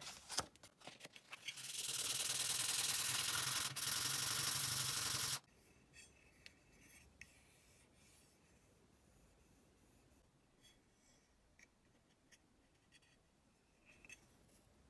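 Abrasive strip rubbed hard over the aluminium back shell of an iPod mini, giving it a brushed finish: a few short scratches, then a loud, steady scraping hiss for about four seconds that cuts off suddenly. Faint clicks of the shell being handled follow.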